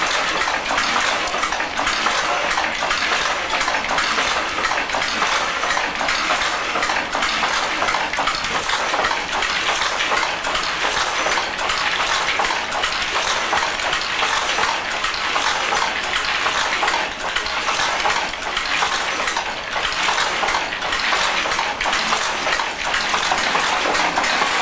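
A pedal-driven Griffith rapier loom running at work weaving tweed, its shuttle-less rapier and shedding mechanism making a steady, dense mechanical clatter.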